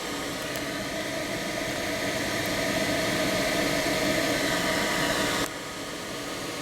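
A 12-volt portable ice-chest air cooler's fan blowing steadily, a rush of air with a faint motor hum. The rush drops suddenly about five and a half seconds in.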